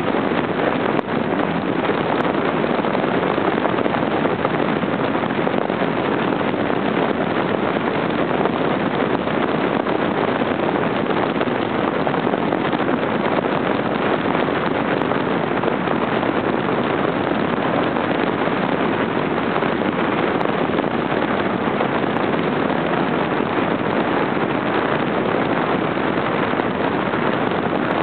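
Audi Ur-Quattro driving at a steady speed: an even, unbroken rush of wind and road noise on the car-mounted camera's microphone.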